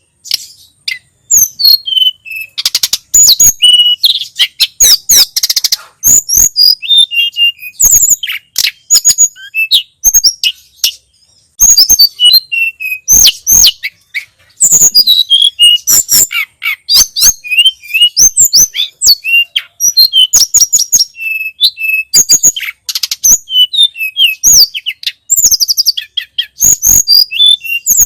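A little pied flycatcher (tledekan gunung or sulingan) singing: a rapid, busy run of high-pitched chirps and quick sweeping whistled notes, delivered in bursts with brief pauses between them.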